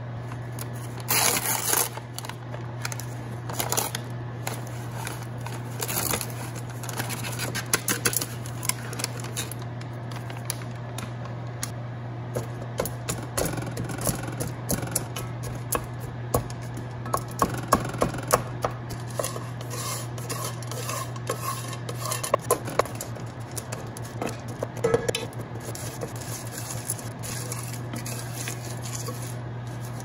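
Wooden spatula scraping and tapping against a nonstick pot, breaking up a solid block of microwave-popcorn kernels and oil and stirring the kernels as the fat melts, with a louder rattle about a second in. A steady low hum runs underneath.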